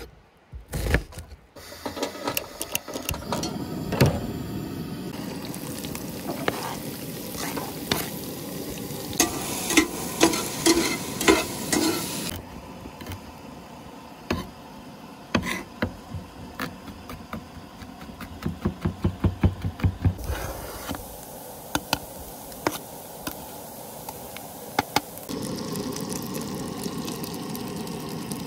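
A santoku knife chopping onion and garlic on a plastic cutting board, in quick runs of sharp strokes. Near the end, butter sizzles as it melts in a stainless steel pot.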